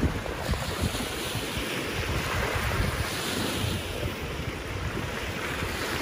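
Gusty wind buffeting the microphone with uneven low rumbles, over small lake waves washing onto a sandy shore.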